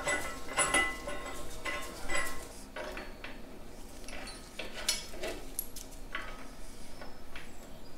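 Steel bolts, nuts and washers clinking as they are handled and set into the holes of a tractor frame rail and cast front bolster. The clinks are light and irregular and ring on briefly, and the loudest comes about two seconds in.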